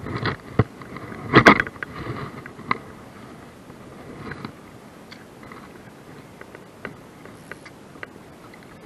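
Handling noise from a chest-mounted camera: a sleeve and hand brushing close past the microphone, with a loud burst of rustling and scraping about a second and a half in, then scattered small clicks, over a steady low wash of water around a wading angler.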